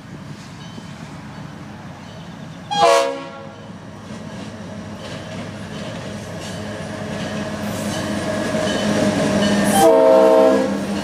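Freight locomotive horn sounding two blasts for a grade crossing, a short one about three seconds in and a longer one near the end. Between them the train's engine and wheels grow steadily louder as it approaches.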